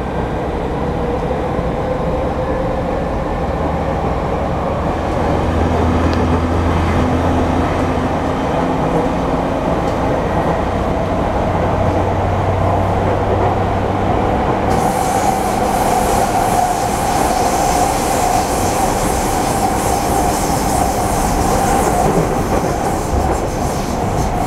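Running sound heard inside a Sotetsu 10000 series electric train with Mitsubishi IGBT-VVVF inverters: the motor whine climbs slowly in pitch over the first several seconds over steady wheel-on-rail noise. About fifteen seconds in, a brighter steady tone and a higher hiss join the running noise.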